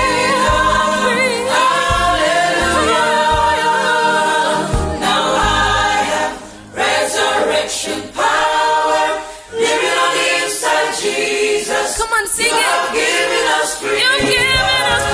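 A choir singing a gospel song in harmony, phrase after phrase, with two short breaths between phrases about seven and nine seconds in.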